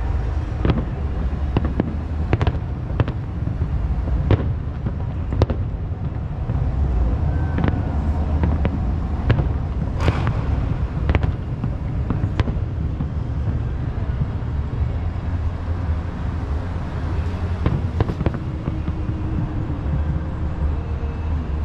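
Aerial firework shells bursting at a distance: an irregular run of sharp bangs, dense over the first dozen seconds and thinning to a few near the end, over a steady low rumble.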